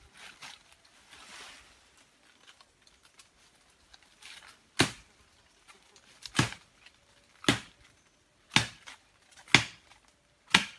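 Rustling through leafy undergrowth, then six sharp chopping strikes into wood, about one a second.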